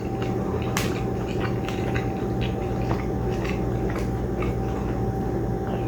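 Steady low electrical hum with a faint high whine, and scattered light clicks and taps.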